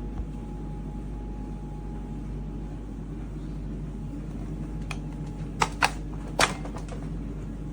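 Shark HydroVac MessMaster cordless wet-dry vacuum mop running with a steady low hum, with a few sharp clicks between about five and a half and six and a half seconds in.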